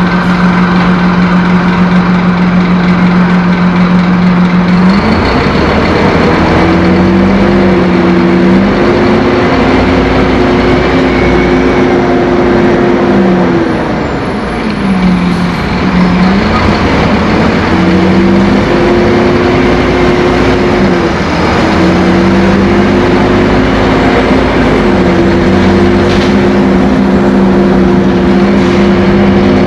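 Scania K-270 bus's five-cylinder turbocharged diesel engine running loud. Its pitch steps up about five seconds in and holds, then twice drops briefly and climbs back as the engine speed falls and rises again.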